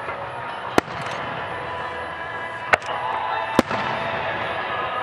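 Aerial firework shells bursting: three sharp bangs, about a second in, near three seconds and again half a second later, over a steady background din.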